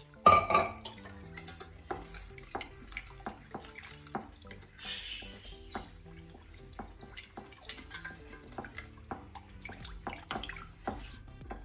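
A small utensil clicking and scraping against the side of a stainless steel saucepan while a liquid milk mixture is stirred, with a louder knock just after the start. Faint background music with held low notes runs underneath.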